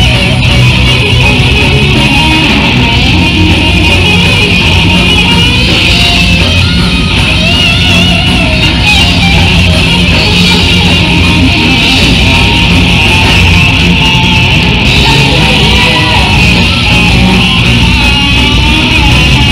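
Live thrash metal band playing an instrumental passage: distorted electric guitars, bass guitar and drums, very loud and dense, with a wavering high guitar line over the top.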